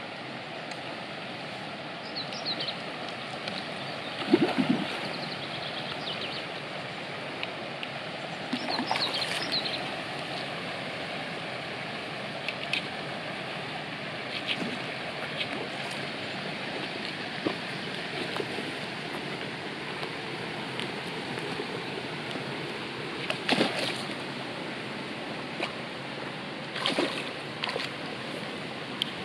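Steady rush of a small river's flowing water, with several brief splashes on top, the loudest about four seconds in and others near the end.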